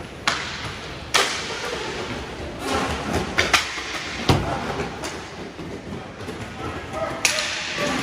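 Hockey game play: a scattering of sharp cracks and thuds from sticks, puck and boards, about six in all, over a steady background of rink noise.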